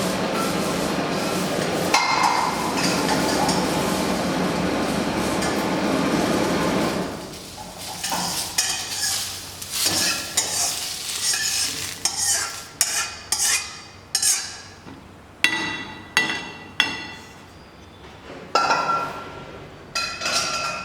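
Kitchen work: a steady hiss for about the first seven seconds, then a series of sharp clinks and knocks of metal utensils, pots and dishes, each ringing briefly.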